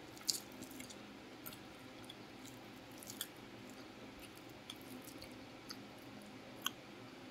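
Soft wet eating sounds of fingers squishing and mixing rice and curry in a ceramic bowl, with a scatter of short, light clicks; the loudest comes about a third of a second in and another near the end.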